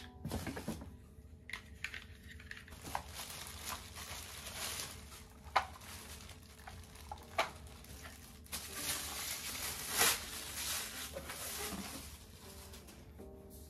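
Plastic wrapping crinkling and cardboard rustling as stick-vacuum parts are unpacked from their box, with a few sharp knocks of the parts being handled and a louder rustle of the plastic near the end.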